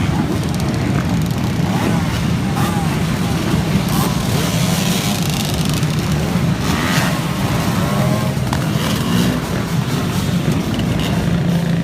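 Motorcycle engines running steadily at a constant pitch, with people's voices heard over them in the middle.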